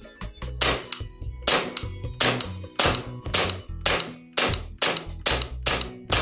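Tokyo Marui Glock 22 gas blowback airsoft pistol firing on green gas. It fires about ten single shots, each a sharp pop as the slide cycles. The shots come faster after the first few seconds.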